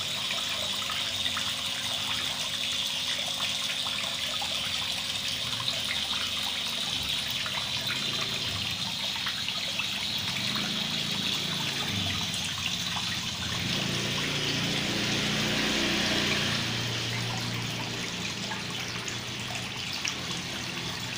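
Water pouring from a pond filter's outlet pipe and splashing steadily onto the surface of a fish pond.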